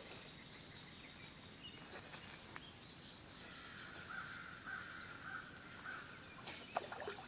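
Insects trilling on one steady high note, with a bird calling a short series of repeated notes in the middle and a sharp click near the end.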